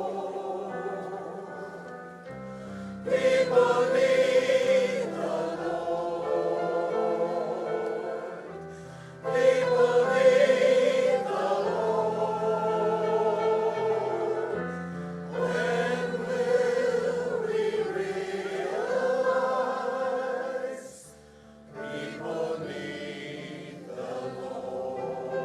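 A group of voices singing a slow hymn with instrumental accompaniment, in phrases a few seconds long; the singing drops away briefly about three-quarters of the way through.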